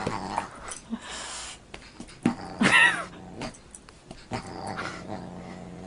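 A dog and a Siamese cat play-fighting: low growling, a short high cry about halfway through, and a few soft knocks.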